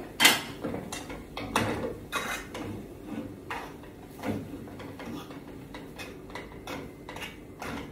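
Metal cookware clanking: a spoon knocking and scraping against a cooking pot as it is stirred, with a sharp clank just after the start and lighter clinks after it.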